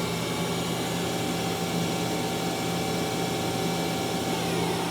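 Sub spindle of a Mazak QTN-250MS CNC turning center running steadily at 2,500 RPM, with a steady whine over the machine's constant hum. Near the end the whine falls away in pitch as the spindle spins down.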